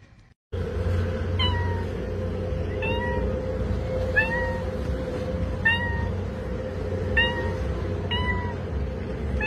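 Short, high, meow-like calls, about seven, repeated roughly every second and a half, each dropping in pitch and then levelling off, over a steady low hum.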